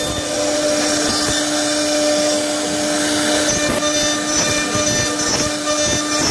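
CNC router spindle milling a wooden panel: a steady whine from the spinning bit over the rough noise of the wood being cut.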